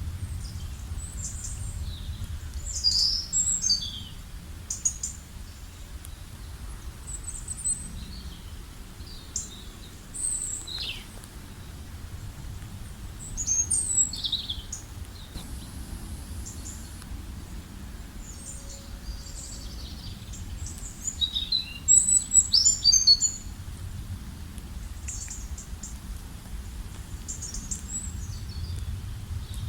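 Several songbirds chirping and trilling in scattered high phrases, loudest about three seconds in, around fourteen seconds and around twenty-two seconds, over a steady low rumble of background noise.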